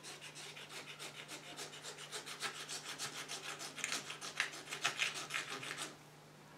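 Cotton bud scrubbing back and forth over the dirty surface of an old oil painting, about five quick scratchy strokes a second. The strokes grow louder partway through and stop shortly before the end. It is a cleaning test to lift smoke grime, which is also taking off some paint.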